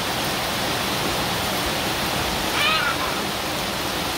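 Heavy rain pouring steadily onto a paved driveway and garden foliage, with a brief high-pitched squeal from a child about two and a half seconds in.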